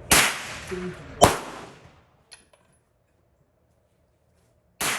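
Three pistol shots, the first right at the start, the second about a second later, and the third near the end after a pause of over three seconds, each trailing off in a short echo. A faint light clink follows about two seconds in.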